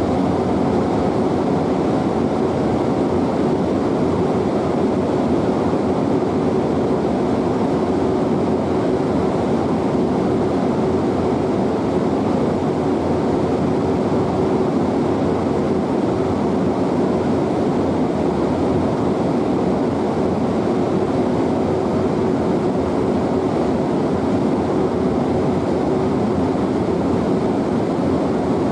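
ITX-Saemaul electric multiple unit moving slowly: a steady, even hum and rolling noise with a faint held tone.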